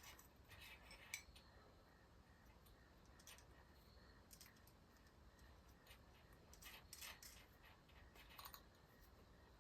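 Near silence with faint, scattered clicks and taps of small metal parts being handled: the throttle cable bracket and its nuts being set in place.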